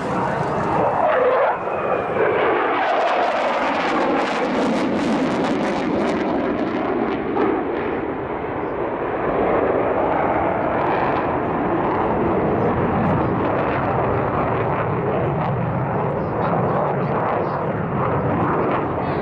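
Jet roar of an F-4EJ Kai Phantom II's twin J79 turbojets during a display pass. The roar is loud and continuous, with a downward pitch sweep in the first couple of seconds as the jet goes by.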